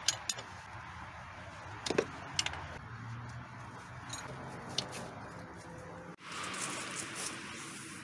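Scattered light clicks and metallic clinks from hand tools and parts during work in a car's engine bay, over a low background hiss. The background changes abruptly about six seconds in.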